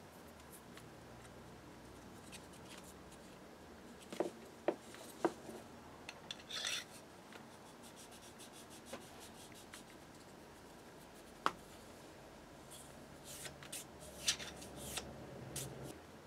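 Faint handling sounds as cardboard strips are pushed into the slit of a hardwood lapping stick and the cylinder is worked onto the now tight-fitting wood: scattered light taps and clicks, a short rub about six and a half seconds in, and a run of scraping and tapping near the end.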